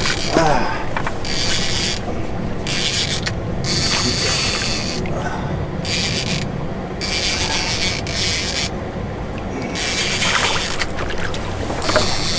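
Fishing reel being cranked in spurts, a whirring that starts and stops about every second, over a steady low rumble from the boat and water.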